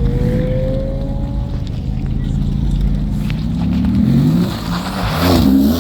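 A car engine running, then revved hard near the end, its pitch climbing and dropping quickly a couple of times.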